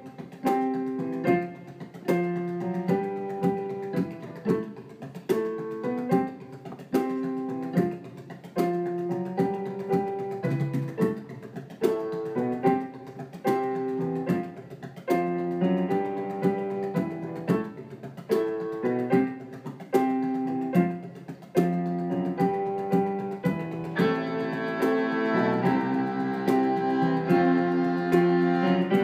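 Traditional tune played live on fiddle, bodhrán and keyboard piano, with a steady rhythm of sharply struck notes and drum beats. The playing grows fuller and brighter about 24 seconds in.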